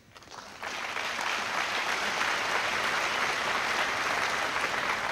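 Audience applauding, swelling in within the first second and holding steady.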